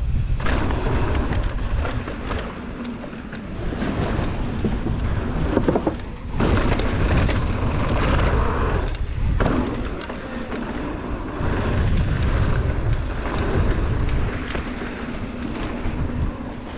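Mountain bike riding down a bike-park trail: tyres rolling over dirt and the bike rattling, under a constant low wind rumble on the microphone. The noise dips briefly twice, about six and nine seconds in.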